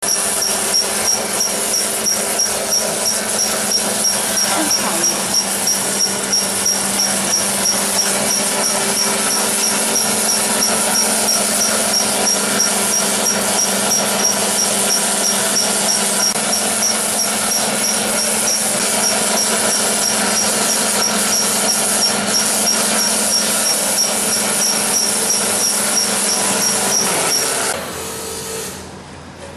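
Toothpick-sharpening machine running steadily: a constant motor hum under a dense grinding hiss, with a high tick repeating about twice a second. The sound drops away suddenly near the end.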